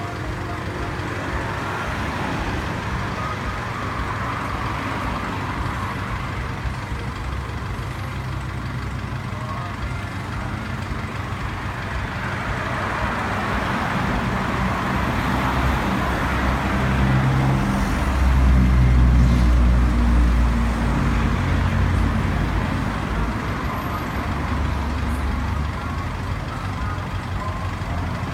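Motor vehicle engine running with road noise, a deep rumble that grows louder about two-thirds of the way through and then eases back.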